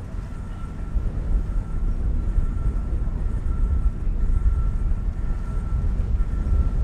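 Steady low rumble of a vehicle under way, with a faint steady whine above it.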